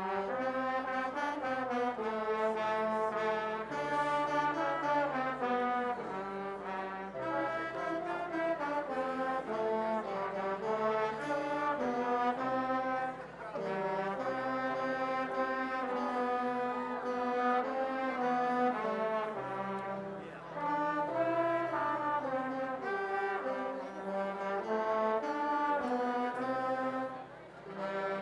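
Instrumental church music: slow chords held in several parts, with a brass-like tone and short breaks between phrases.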